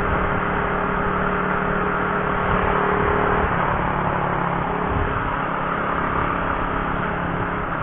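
Honda CB150R single-cylinder engine running at a steady cruise, with wind rushing over the microphone on the moving motorcycle.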